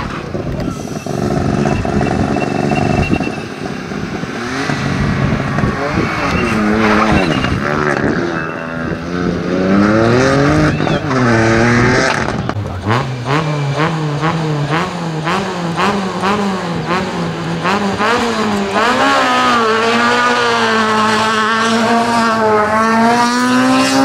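Rally car engine revving hard, its pitch climbing and dropping again and again with gear changes and lifts. Around the middle there is a quick run of sharp cracks, about two or three a second.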